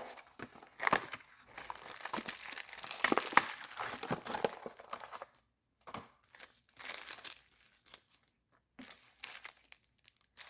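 Packaging of a fuel petcock rebuild kit crinkling as it is opened and the parts are taken out: dense rustling for about five seconds, then a few short, scattered crinkles.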